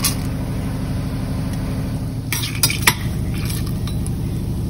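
Whole spices tipped into hot oil in a steel pressure cooker, then a metal slotted spoon stirring them and clinking against the pot a few times about halfway through, over a steady low hum.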